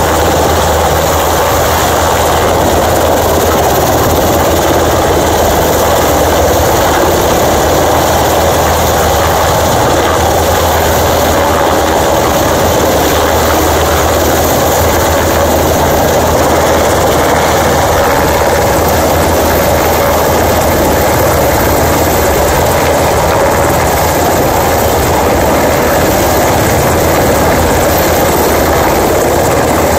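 Steady, loud rotor and turbine noise from a Navy H-60 Seahawk helicopter hovering low overhead, with a second one flying close behind.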